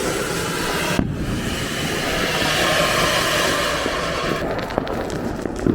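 Anar (flower-pot fountain firecracker) spraying sparks with a steady hiss, briefly broken about a second in. The hiss dies away near the end, leaving a few crackles.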